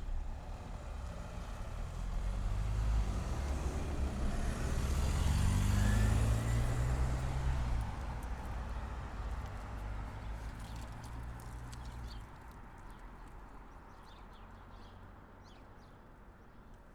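Suburban electric train passing close by: a rumble that builds to its loudest about six seconds in, with a whine gliding down in pitch as it goes past, then fades away as the train recedes. Faint bird chirps come through near the end.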